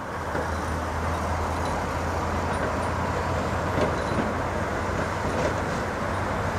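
Road traffic: a steady low engine drone with tyre noise, as a heavy dump truck and cars pass on the street. The sound fades up at the start.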